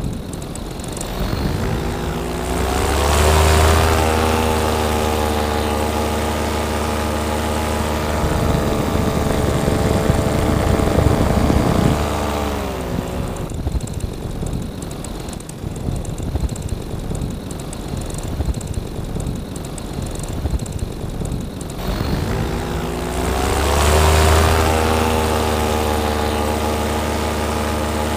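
Paramotor engine and propeller throttled up, held at a steady high pitch, throttled back to a lower running note about halfway, then throttled up again near the end.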